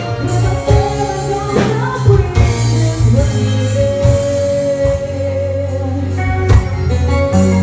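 Live band playing a song: female singing over electric guitar, drums and keyboard, with one long held vocal note about three seconds in.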